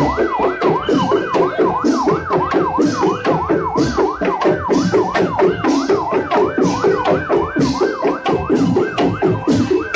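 Loud dance music blasting from a carnival parade sound system, with a fast wailing siren effect of about three sweeps a second over a steady pounding drum beat.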